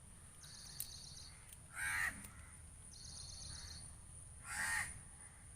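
A crow cawing twice, two harsh calls about three seconds apart.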